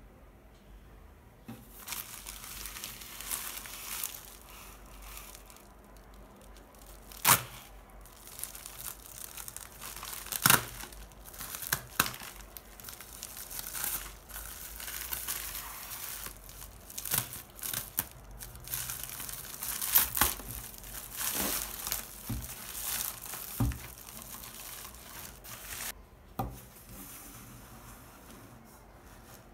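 Plastic Amazon mailer bag being opened and handled, its film crinkling, with several loud sharp snaps. It starts about a second and a half in and dies away a few seconds before the end.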